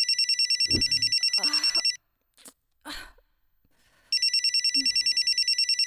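Telephone ringing with a fast, trilling bell-style ring: two bursts of about two seconds each, separated by a pause of about two seconds.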